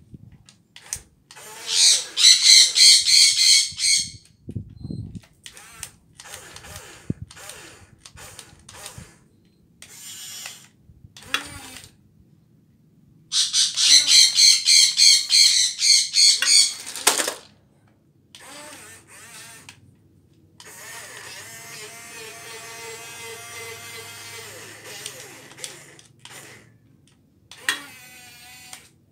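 Radio-controlled toy excavator's small electric motors and plastic gearboxes whirring in short stop-start bursts as its tracks and arm are worked, with two loud runs of rapid high-pitched pulsing, about 2 seconds in and again about 14 seconds in, and a steadier motor run in the second half.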